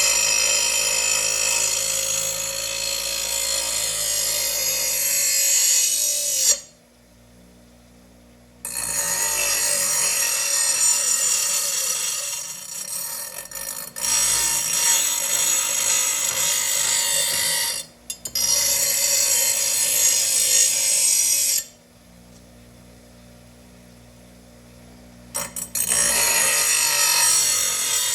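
A power grinder grinding the steel edge of a lawn mower blade in long passes of several seconds, with harsh, hissing metal-on-abrasive noise. It stops briefly three times between passes.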